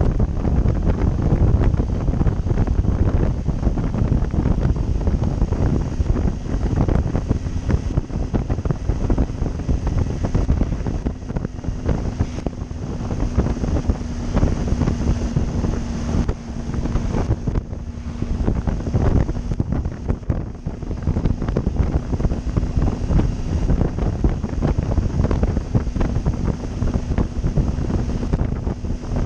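Heavy wind buffeting on the microphone of a camera on a moving motorcycle, a Triumph Tiger 800, with a faint steady engine tone beneath the rush.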